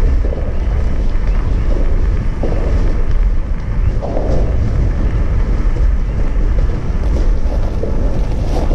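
Erupting Kīlauea lava fissure giving off a deep, continuous rumbling roar, with wind buffeting the microphone.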